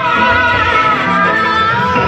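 Music with a held, wavering melody line over lower sustained notes.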